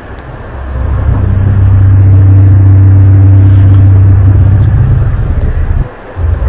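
Loud, low, steady droning hum of the kind circulated as the mysterious 'strange sounds' heard in the sky. It swells up over about a second, holds steady, breaks off briefly near the end and then resumes.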